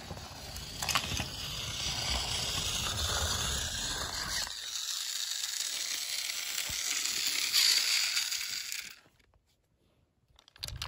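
Small electric motor of a battery-powered toy train engine running, at first rolling with a low rumble along plastic track, then, from about halfway, a thinner high whir with the low rumble gone, as from wheels spinning freely off the track. The sound drops to near silence for about a second and a half near the end.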